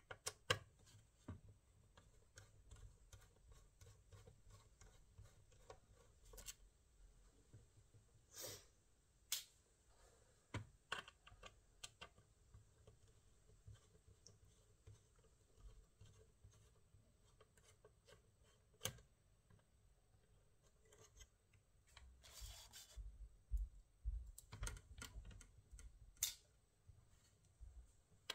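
Scattered small clicks and taps of hands working on a laptop, quiet and irregular, with a short scraping rustle about three-quarters through and a cluster of low bumps near the end.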